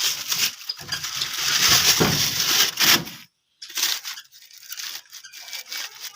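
Plastic shopping bags being pulled and torn off a washing machine, crinkling and ripping loudly for about three seconds. After a short break, quieter crinkling and scraping.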